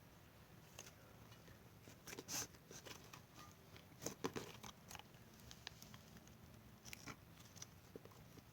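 Caramel-coloured glitter slime being handled by hand: faint, scattered sticky crackles and squishes, a few slightly louder ones about two and four seconds in.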